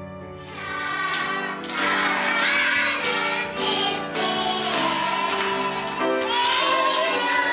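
A group of children singing a song together over music, swelling up about half a second in.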